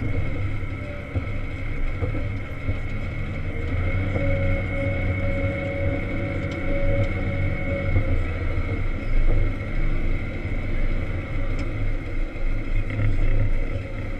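Volvo L70 wheel loader's diesel engine running under load, heard from inside the cab while it pushes snow. The drone rises and falls a little, and a faint whine comes in for a few seconds in the middle.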